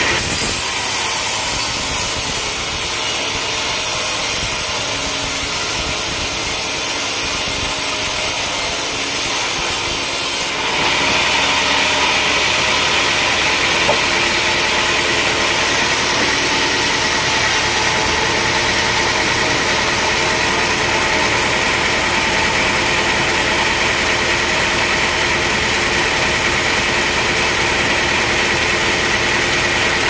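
Band sawmill running, its band blade ripping a teak log lengthwise. The sound is steady, and about ten seconds in it turns abruptly brighter and a little louder.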